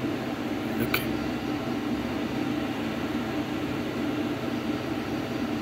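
Steady machine hum with one short click about a second in.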